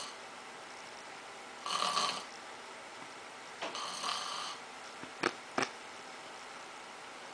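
A person snoring: two drawn-out snores about two seconds apart, then two short, sharp snorts in quick succession.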